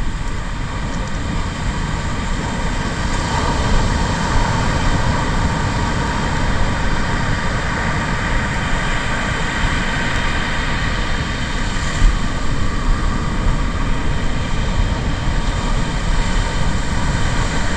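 Steady roar of breaking surf with wind on the microphone, rising and falling a little as waves come in.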